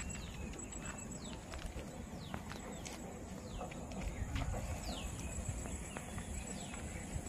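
Outdoor ambience: a low rumble, with short high calls that slide downward, sounding irregularly about once a second, over a faint steady high buzz.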